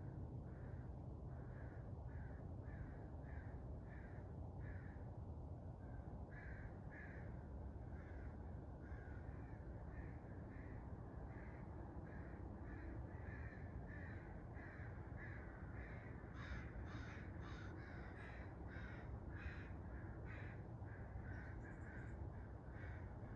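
Crows cawing over and over, about two calls a second, growing louder about two-thirds of the way through, over a steady low rumble of outdoor ambience.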